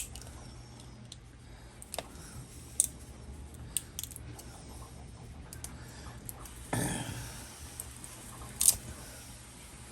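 Scattered sharp clicks and snaps as support material is picked and broken off a small 3D-printed PLA part, with a brief scrape a little before 7 s and the loudest snap about a second later, over a steady low hum.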